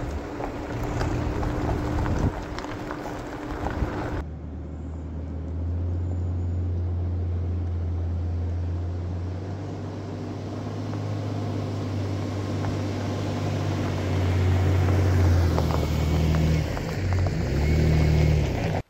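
Tyre and road noise from a truck driving a gravel road for about four seconds. Then a pickup truck's engine runs with a steady low hum as the truck rolls slowly up the dirt track and close past, growing louder as it nears.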